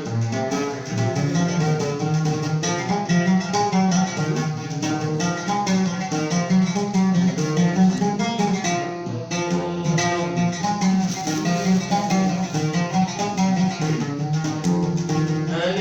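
Instrumental passage without singing: a plucked string instrument playing a busy, continuous melody.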